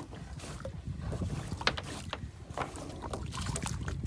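Boat engine idling low and steady, with a few faint light knocks.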